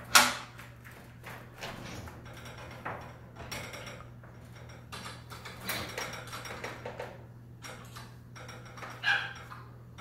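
Steel winding bar clanking and knocking in the winding cone of a garage door torsion spring while the spring is adjusted by hand: one sharp metal clank at the start, scattered lighter knocks and scrapes, and another clank near the end.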